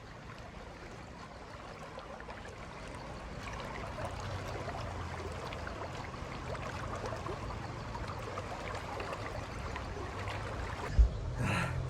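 River water flowing steadily over stones, a continuous rushing stream, with a short low knock near the end.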